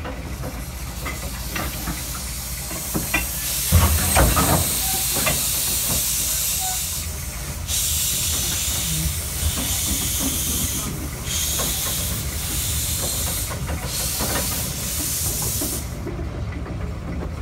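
Steam hissing loudly from a nearby steam locomotive, starting a few seconds in, stopping briefly three times and cutting off near the end, over the steady low running of the small locomotive's engine. A short low knock sounds just as the hiss begins.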